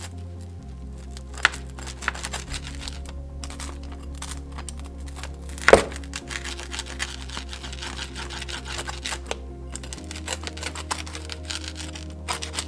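Rotary pizza cutter crunching through a wood-fired pizza crust on a wooden board: a run of crackling clicks, with one loud crunch about halfway through, over background music with a steady low bass.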